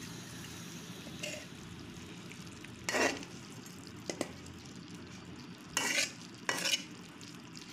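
Spatula stirring and scraping sliced ivy gourd (kovakkai) frying in oil in an aluminium pan, over a steady low sizzle. Four louder scrapes against the pan come between about three and seven seconds in.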